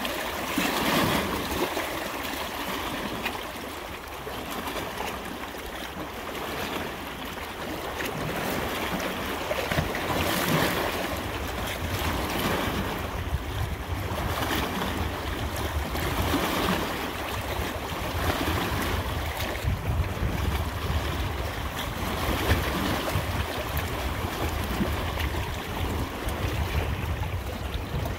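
Water rushing without a break, swelling and easing every few seconds, with a low rumble from about halfway through.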